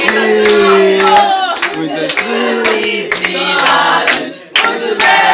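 A group of people singing a birthday song together, with hands clapping along. The singing breaks off briefly about four seconds in.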